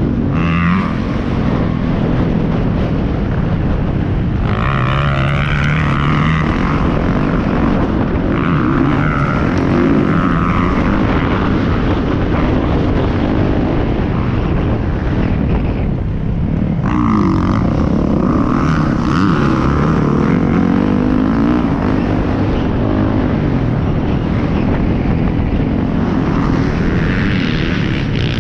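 Motocross bike engine under hard riding, its pitch rising and falling again and again as the rider accelerates, shifts and backs off, heard close up from a helmet camera.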